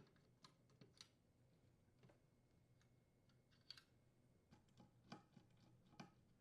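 Near silence with a few faint, irregular clicks: a screwdriver unthreading the oven door handle's mounting screws and the small parts being handled.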